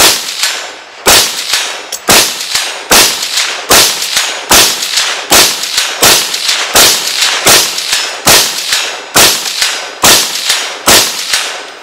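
Kel-Tec CMR-30 .22 WMR semi-automatic rifle fired without a suppressor in a steady string of about a dozen and a half shots, roughly one every half to three-quarters of a second. Each sharp crack is followed by a short echo.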